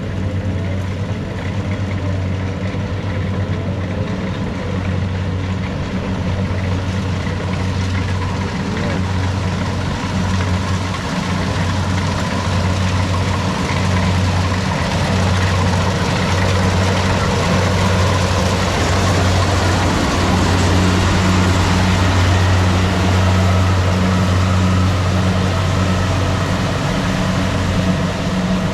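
Tracked rice combine harvester running steadily as it makes a cutting pass through a paddy, a low engine hum with a broad mechanical rush that grows louder as it comes closer, loudest about two-thirds of the way through.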